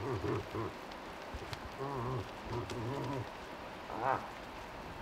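Cow moose giving a string of short bleating calls, with a brief, higher call about four seconds in. Rain drips in the background.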